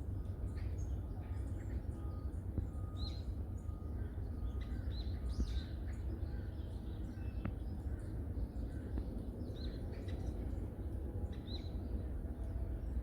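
Small forest birds chirping: short, high calls repeated every couple of seconds, with scattered faint ticks, over a steady low rumble.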